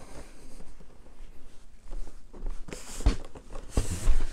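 Footsteps and clothing rustle of a person walking across a carpeted room, with several short, soft thumps in the second half, the loudest near the end.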